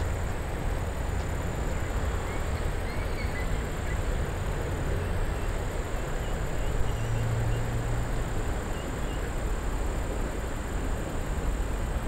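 Steady rushing noise of fast, choppy river water and wind outdoors, with faint high bird chirps repeating from a couple of seconds in.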